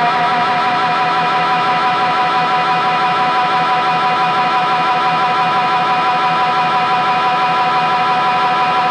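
Boss RE-202 Space Echo pedal in runaway self-oscillation: a steady electric drone of several held tones at a constant level, with no picked notes and no decay.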